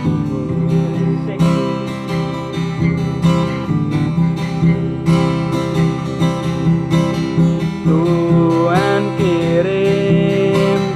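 Acoustic guitar strummed in a steady rhythm, the backing of a song; a singing voice comes in near the end.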